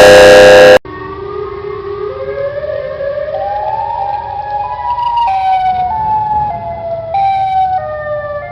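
A short blast of loud music cuts off under a second in. A siren follows, its tone climbing in distinct steps and then stepping back down.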